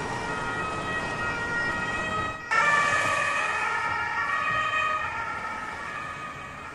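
Emergency-vehicle siren sounding in held tones over a wash of street noise. It cuts out for a moment about two and a half seconds in, comes back louder, then slowly fades.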